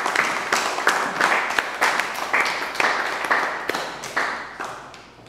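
Audience applauding, the claps thinning out and fading away near the end.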